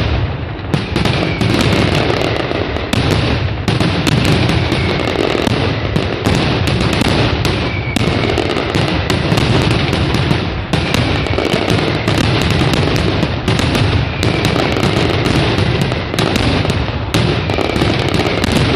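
Mascletà pyrotechnic display: a dense, nearly unbroken barrage of firecracker bangs and aerial shell bursts, with short falling whistles about every two seconds.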